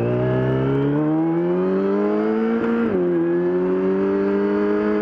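Yamaha R6 inline-four engine pulling hard as the sportbike accelerates. Its pitch rises steadily, drops sharply about three seconds in on an upshift, then climbs gently again.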